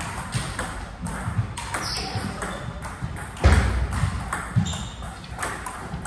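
Table tennis ball clicking off paddles and the table during a rally, with more clicks from nearby tables. A single heavy thump about three and a half seconds in, and a few short high squeaks.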